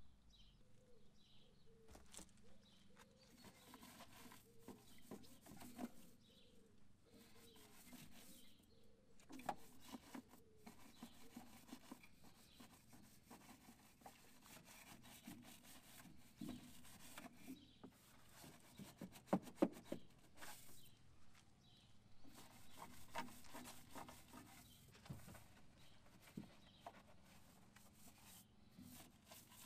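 Faint rubbing and scrubbing with scattered light knocks and clicks, the sharpest knocks about two-thirds of the way through.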